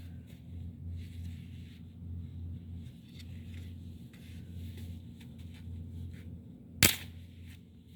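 A newly lit bonfire: faint scattered crackles and rustling over a low steady rumble, with one sharp loud crack near the end.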